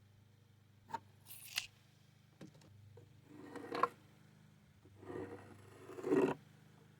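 A few light knocks and short scrapes of wood being handled and shifted, over a faint steady low hum.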